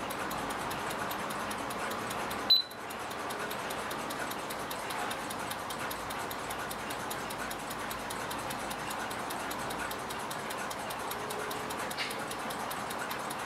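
Carriage clock's platform escapement ticking steadily at 18,000 beats an hour, picked up by a timing machine's sensor and running within a beat an hour of that rate after its balance staff replacement. About two and a half seconds in, the MicroSet timer gives one short high beep as it posts a new rate reading worked out from the previous 60 beats.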